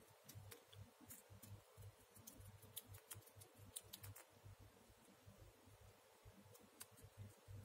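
Near silence: faint scattered ticks and rustles from a glue tube and a small piece of foam being handled, over a low hum.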